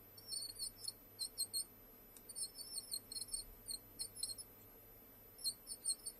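997 brushed DC motor squeaking at the brushes as its shaft turns: short high-pitched squeaks in several clusters with brief pauses between them. The owner puts the squeak down to the motor's oddly toothed brushes rubbing on the commutator and scoring grooves in it.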